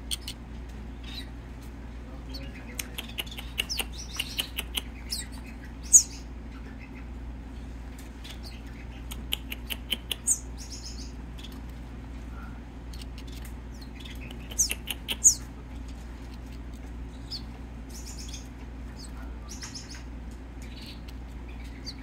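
Finch nestling begging to be hand-fed: short, high, thin cheeps in small scattered runs, with a few sharper single calls.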